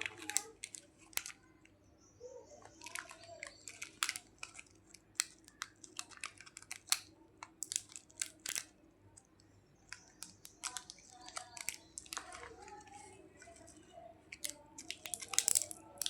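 Plastic candy packaging being handled and opened: irregular crinkling, crackling and tearing with sharp clicks, in spells throughout.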